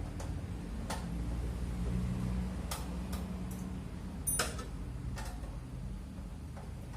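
Irregular clicks and light metal clinks of a wrench and screwdriver working on the housing of a drink cup-sealing machine, the loudest a ringing clink about four seconds in, over a steady low hum.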